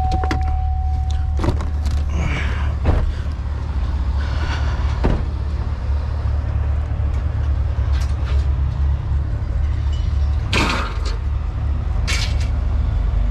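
A vehicle engine idling with a steady low rumble, under scattered knocks and clanks. A single steady tone sounds during the first second or so, and two louder scraping noises come about ten and twelve seconds in.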